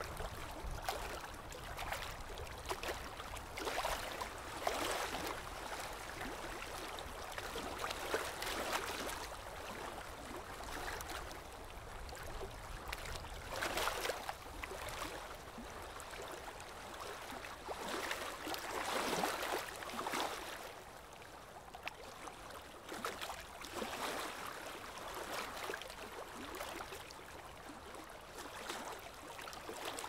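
Shallow stream running over a stony bed, a steady rushing and gurgling that swells and eases every few seconds.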